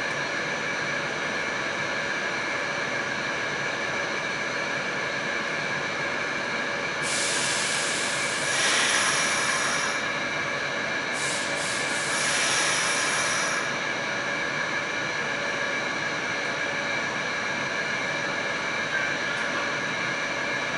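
R46 subway car heard from inside the car as it runs: a steady rumble and hum with a few constant tones. About seven seconds in and again about eleven seconds in comes a spell of sharp high hissing lasting a few seconds each.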